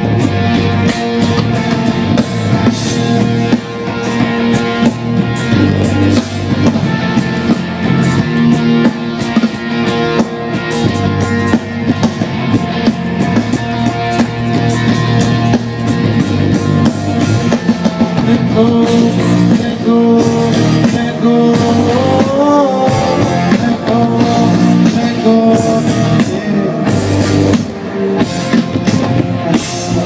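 Live band playing a song through the stage's PA speakers during a sound check, with a continuous full band sound.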